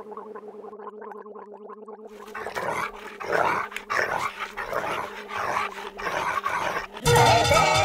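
Growling and snarling from a creature over a steady low drone, in a film clip's soundtrack, coming in rough pulses that get louder from about two seconds in. Near the end a loud burst of music breaks in.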